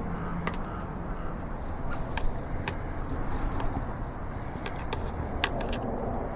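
Scattered light clicks and taps of tire levers working an inner tube under the bead of an e-bike's dual-sport tire, against the wheel rim, over a steady low rumble of background noise.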